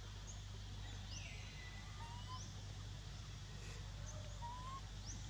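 Outdoor ambience: a steady low hum and hiss with a few short, high animal chirps and rising whistles scattered through it.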